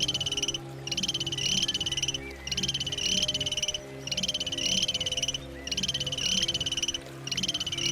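An animal's call: a rapid, buzzing pulsed trill about a second and a quarter long, repeated over and over with short gaps between, over a low steady hum.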